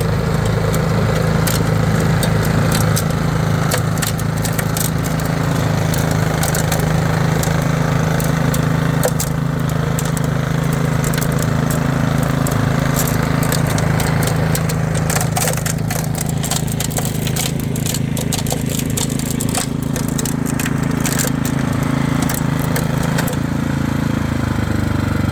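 Toro 1028 HD two-stage snowblower running steadily under load while clearing heavy, wet snow, with frequent sharp ticks throughout. The engine note rises slightly near the end.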